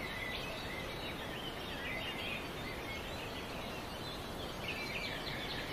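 Small birds chirping over steady background noise, the chirps busier near the end.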